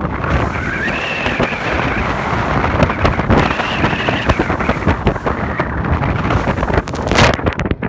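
Heavy wind buffeting the microphone aboard a RIB running through choppy sea, with water rushing along the hull. A sharp thump near the end.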